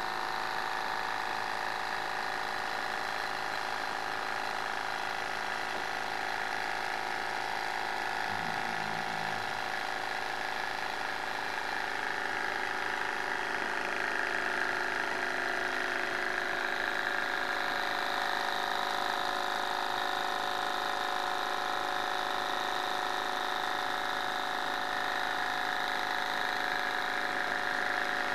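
Model Stirling engine running at speed: a steady whir from its spinning crankshaft, flywheels and linkages, a little louder in the second half.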